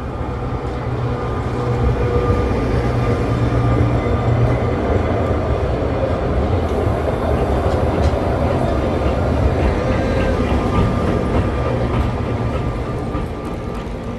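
Sóller electric tram running past on its rails, a steady rumble with a low hum that grows louder over the first couple of seconds and eases slightly near the end.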